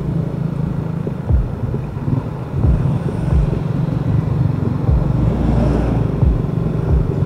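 Motor vehicle running on the road: a steady low engine and road hum with irregular low thumps every second or so.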